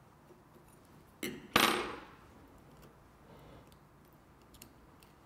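A small metal object knocking against a hard surface: two quick clinks about a second and a half in, the second louder and ringing briefly. Faint small clicks of phone parts being handled.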